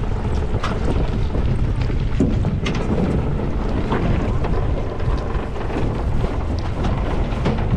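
Small boat under way: its motor running under a heavy rush of wind on the microphone, with scattered knocks and splashes from the hull meeting the water.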